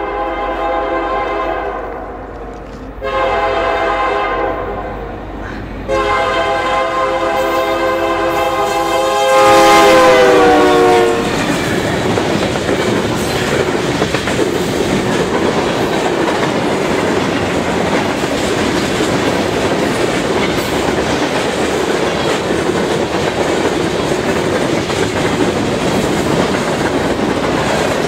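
Union Pacific freight locomotive's air horn sounding in several long blasts for the grade crossing; its chord drops in pitch as the locomotives pass, about ten seconds in. Then the freight cars run by close, with a steady rumble and clickety-clack of wheels over the rail joints and crossing.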